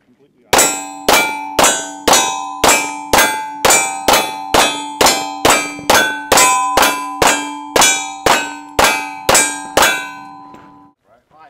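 A pistol fired in a steady string of about twenty shots, about two a second, with steel targets ringing from the hits. The ringing carries on about a second after the last shot.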